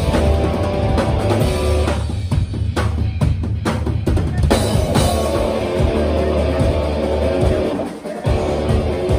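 Live band playing loud, with electric guitar, bass guitar and a drum kit. About two seconds in the music thins for a couple of seconds to mostly separate drum hits. There is a brief drop near the end before the full band comes back in.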